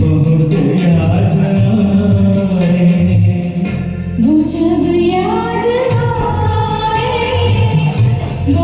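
Music: a Hindi film song performed over a karaoke backing track, with held melody notes over a steady beat and a melody that climbs in pitch about halfway through.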